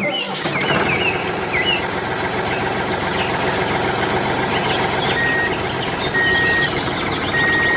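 A diesel tractor engine running steadily, with short chirps over it. From about five seconds in come three steady high beeps like a reversing alarm.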